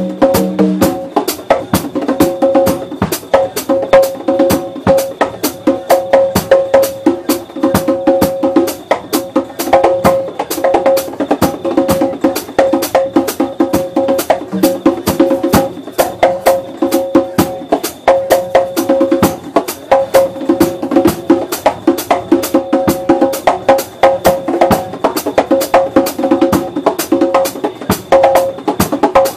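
Drum kit played live at a fast, busy pace: a dense, even stream of strokes on the drums and cymbals.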